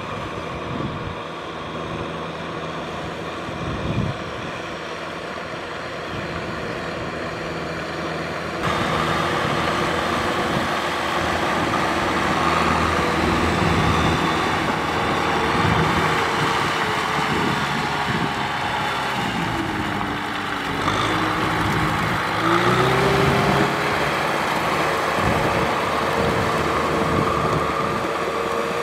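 Kubota M6040 tractor's diesel engine running steadily under load, working a flooded rice paddy. It gets louder about a third of the way in, and its pitch dips and climbs again about two-thirds of the way through.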